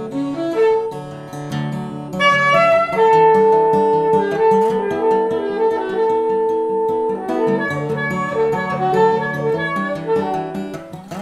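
Instrumental music: plucked acoustic guitar, with a long sustained melody note held for a few seconds in the middle.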